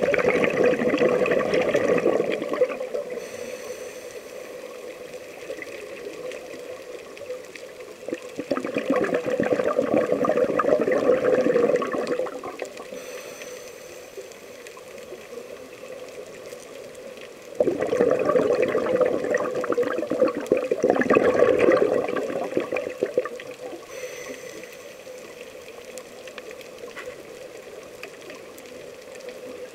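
Scuba diver's exhaled bubbles gurgling out of a regulator, heard underwater through a camera housing: three long bursts several seconds apart, with a quieter hiss and a faint steady hum between breaths.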